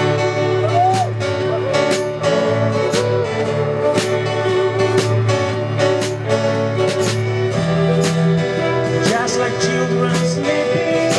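Music with guitar and a steady beat, with a voice singing at times.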